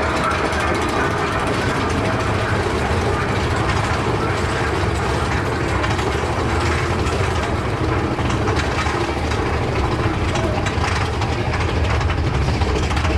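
Big Thunder Mountain Railroad mine-train roller coaster being hauled up a chain lift hill: a steady mechanical rumble with rapid clicking and rattling from the lift chain and track.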